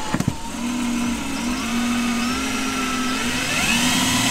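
Cordless drill running under load, boring a pilot hole down through a van's thin sheet-metal floor. The motor whine starts with a couple of clicks and rises in pitch about three-quarters of the way through.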